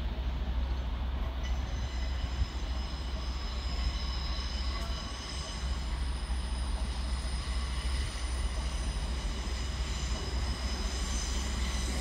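High-pitched squeal of train wheels on curved track and pointwork, coming in about a second and a half in and holding steady as the train rolls towards the station, over a low steady rumble.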